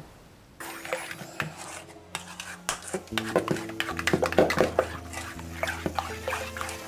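Metal spoon clinking and scraping against an enamel bowl while stirring a thin batter, over background music that comes in about half a second in.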